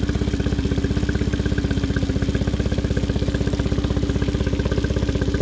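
2020 Mercury 15 HP four-stroke EFI outboard idling steadily with an even, rapid pulse, run on its trailer out of the water.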